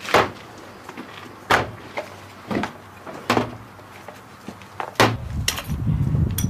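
Sharp hollow knocks and clatters as fiberboard grenade packing tubes are picked up and set down on a counter, about seven in all, spread unevenly. A steady low rumble sets in about five seconds in.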